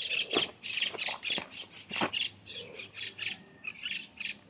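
Repeated short crunching and rustling of dry grass and leaves, roughly three times a second, as from footsteps through dry vegetation, with a few sharper snaps.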